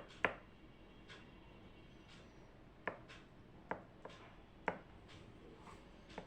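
Desk sounds from someone studying: about five sharp, scattered clicks and taps spread over several seconds, over a faint steady room hiss.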